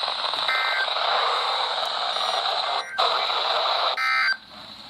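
Weather-radio receiver static hissing between broadcasts, broken by short bursts of buzzy two-tone EAS (SAME) digital data: one about half a second in, another just after four seconds in. The data bursts are the end-of-message tones of a weather alert. About four seconds in the hiss cuts out to a much quieter background.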